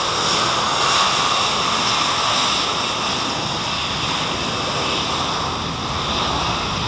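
Twin jet engines of an Airbus A320-family airliner rolling along the runway: a steady, loud rushing noise with no breaks.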